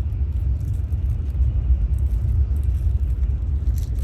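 Steady low rumble of a Tokaido Shinkansen Nozomi bullet train, heard from inside the passenger cabin.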